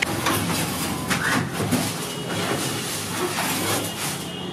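Busy bakery workroom din: a steady rumbling background noise with scattered light clicks and knocks, and a faint thin whine in the second half.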